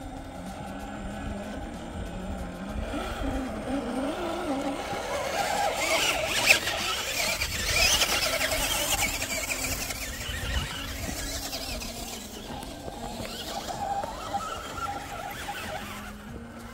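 RC rock crawler's electric motor and geared drivetrain whining as it crawls over rocks, the pitch wavering with the throttle. A louder stretch of crunching on loose rock comes in the middle, with a sharp knock about six and a half seconds in.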